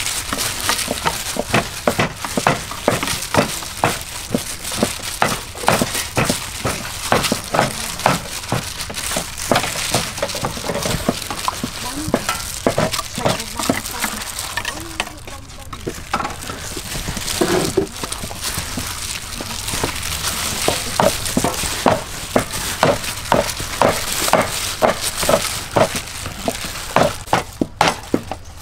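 Gloved hands tossing and pressing chicken pieces in a metal tray of dry breadcrumbs: a dense, continuous crunching and crackling of the crumbs, made of many quick clicks, with a short quieter spell about halfway through.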